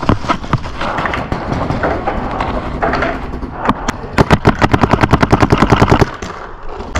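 Paintball marker firing: scattered shots, then a rapid, even string of about ten shots a second starting about four seconds in and cutting off suddenly about two seconds later.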